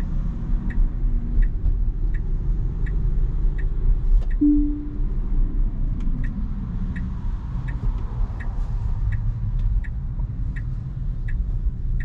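Tesla turn-signal indicator ticking steadily, about three ticks every two seconds, over low road rumble in the cabin. A single short chime sounds about four seconds in.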